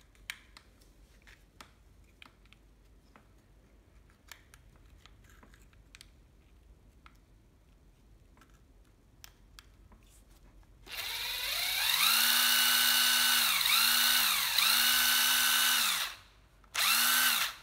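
Hitachi 12V cordless drill/driver motor run by its trigger. After a few faint handling clicks, it spins up about eleven seconds in to a steady whine, winds down and back up three times, stops, then runs once more briefly near the end. Its trigger is slightly sticky from dust and slow to spring back, as the owner finds.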